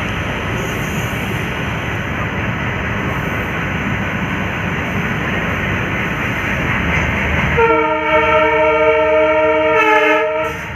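WDM3D diesel locomotive running with a dense engine and rail rumble, then sounding its horn in one long blast of about three seconds near the end.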